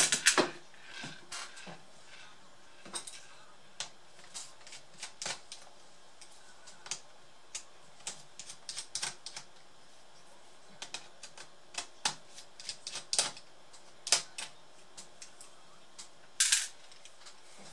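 Irregular small clicks and taps of a screwdriver and screws against the plastic bottom case of a Samsung NP550 laptop as its screws are undone, with a sharper knock at the start and a short louder clatter near the end.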